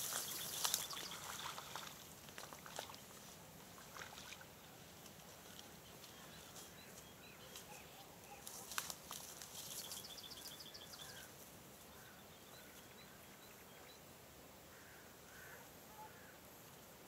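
Faint open-air riverbank ambience with small birds calling now and then, including a rapid ticking trill about nine seconds in. A few sharp clicks sound in the first second or two.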